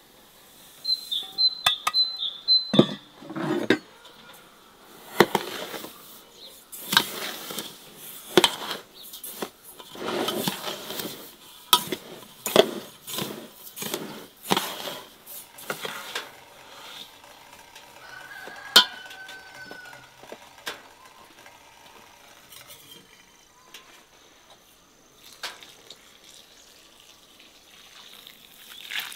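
Metal spoon clinking and scraping against an enamel basin as seasonings are spooned into dry fine bulgur: a string of sharp clinks and short gritty scrapes, thinning out to occasional clinks after about sixteen seconds.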